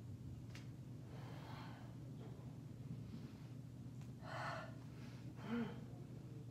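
A woman breathing audibly while holding a deep yoga backbend (wheel pose), three breaths, the loudest about four seconds in, over a steady low hum.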